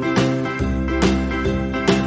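Background music: a bright, plucked-string tune with notes struck about twice a second and a low bass coming in about half a second in.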